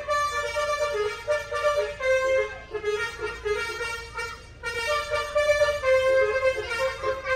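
A bus's multi-trumpet telolet air horn playing a melody through its tune module, held notes stepping from pitch to pitch, with a short break a little past the middle.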